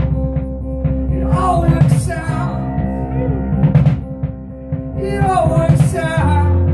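A small rock band playing live: strummed acoustic guitar, electric guitar, bass guitar and keyboard, with a man singing two short phrases, one about a second in and one near the end.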